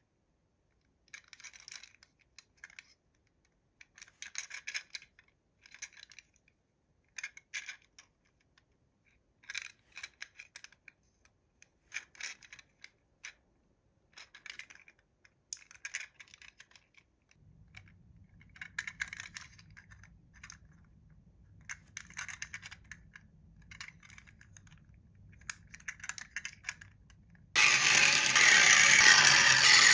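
Small hard clicks and rattles in short clusters every second or two, like a plastic toy and its packaging being handled. A much louder steady rushing noise starts abruptly near the end.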